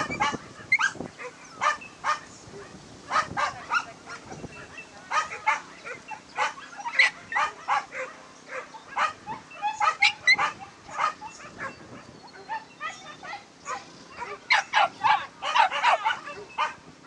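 Dogs barking and yelping in short, repeated yaps that come in irregular clusters, with a faint steady low hum underneath.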